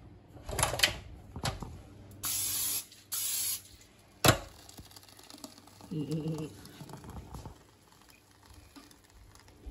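Two short hisses of nonstick cooking spray, each about half a second, coating the hot plates of a waffle maker, then a single sharp knock of the waffle maker's lid about four seconds in.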